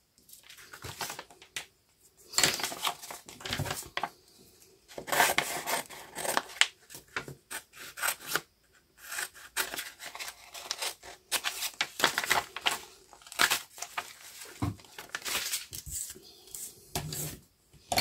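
Scissors cutting small squares out of a sheet of acrylic-painted paper, in a run of short snips and paper rustling as the sheet is turned and handled.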